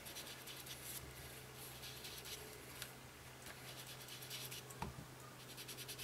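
Ink sponge being rubbed and dabbed over a small punched cardstock heart on paper, giving faint, irregular scratchy strokes as gray ink is worked onto the edges.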